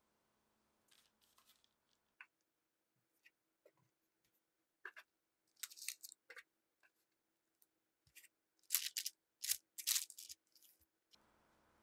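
Short crisp crunching and scraping sounds, a few scattered at first, then a louder run of four or five close together near the end.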